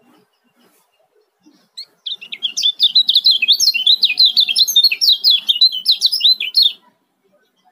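Kecial kuning (white-eye) singing a fast, tightly packed chattering 'ciak' song of rapid high rising-and-falling notes. It starts about two seconds in and cuts off abruptly near the end.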